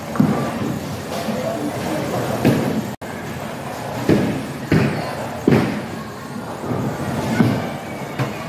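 Bowling alley din: bowling balls rolling down the wooden lanes, with several sharp knocks and clatters of balls and pins, over a background of voices.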